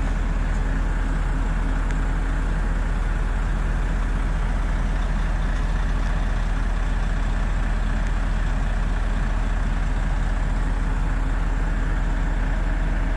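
Heavy diesel engine running steadily at an even speed, a deep continuous rumble that does not rise or fall.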